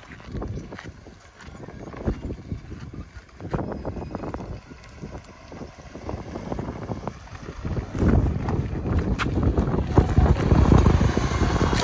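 Lada Niva driving back across an empty irrigation canal: uneven rumble with knocks and bumps, then the engine gets louder about eight seconds in as it climbs the bank.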